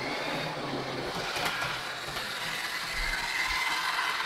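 Model train locomotive running along the track: a steady electric-motor whine with the rumble of its wheels on the rails, and a single click about a second and a half in.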